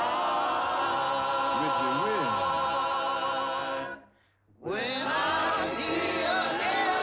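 Male vocal choir holding a long final chord with wide vibrato that breaks off about four seconds in, then comes back after a short gap with another held chord.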